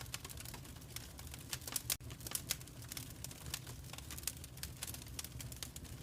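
Wood fire in a fireplace crackling, with many small irregular pops and snaps over a steady low rumble. There is a momentary break in the sound about two seconds in.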